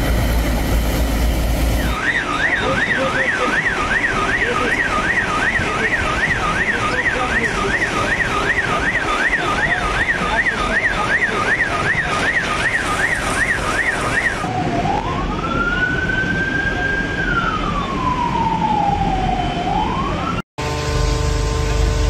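Emergency vehicle siren: a fast yelp sweeping up and down about two and a half times a second, which changes about two-thirds of the way in to a slow wail that rises, holds, falls and starts to rise again before cutting off suddenly. A low rumble comes before the siren starts, and a steady hum follows it.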